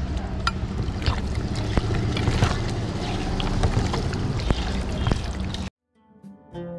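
A hand squishing and mixing chicken pieces with curd in an aluminium pot, with many small clicks and knocks and a steady low rumble. The sound cuts off suddenly after five to six seconds, and music starts near the end.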